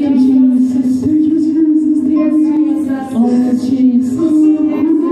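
A church praise team singing a slow worship song through microphones, holding long notes that step from one pitch to the next.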